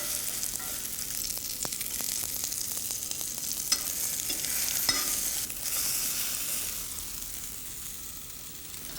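Egg-coated mozzarella-and-bread sandwiches frying in olive oil in a pan: a steady sizzle with a few sharp crackles, easing a little near the end.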